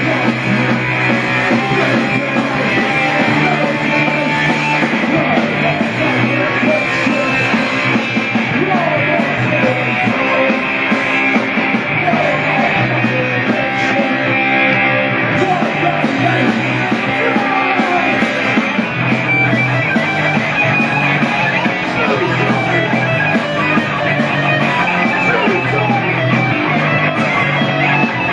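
Live punk band playing loud: electric guitar over a bass line that moves in steps of about a second, steady and unbroken.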